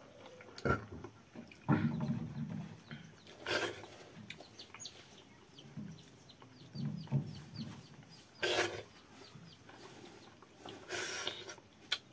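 A person eating rice and curry with his hand: chewing, with a few short, louder mouth and hand sounds, and fingers working food on a steel plate. A bird chirps faintly in the background, a string of small high chirps.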